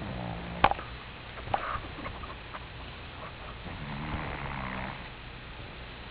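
A domestic cat snoring in its sleep: two low snores about four seconds apart. A sharp click cuts through the first snore, with a fainter click about a second later.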